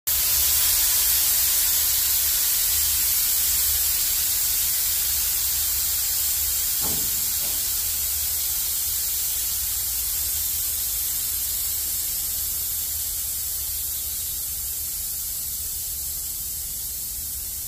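A steady, high hiss with a low rumble underneath, slowly fading over the whole stretch.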